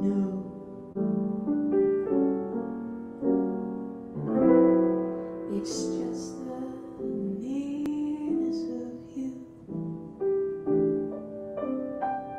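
Grand piano played in chords, with a woman singing a phrase over it from about four seconds in.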